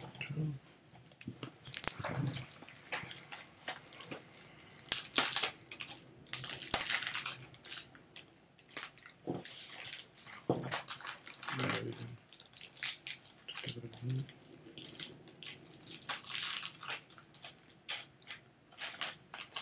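A stack of 2020 Bowman Draft Chrome baseball cards being handled and sorted in the hands: irregular rustling and sliding of card against card, with a few soft knocks.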